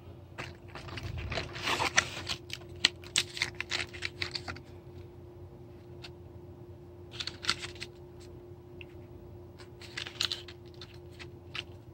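Packaging of a box of energy chews being handled and opened by hand: bursts of quick clicks and crinkles in several clusters, with pauses between them.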